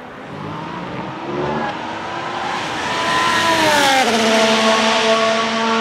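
Ferrari F1-75 Formula 1 car's turbocharged V6 engine running, growing louder as it nears. Its pitch glides down about three to four seconds in, then holds steady.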